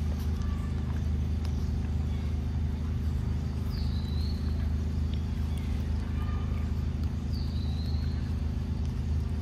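A motor running steadily with a low, even hum. Two faint, short high chirps come over it, about four and seven seconds in.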